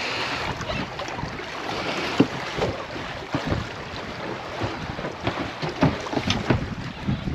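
Wind buffeting the microphone over choppy water lapping against a boat, with scattered short knocks.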